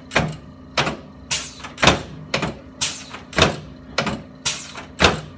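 A steady series of sharp knocks, about two a second, each with a short ring, during a chiropractic adjustment of the shoulders, clavicles and front rib cage.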